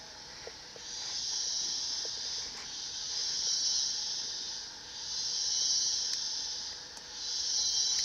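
A high-pitched insect chorus, swelling and fading about every two seconds.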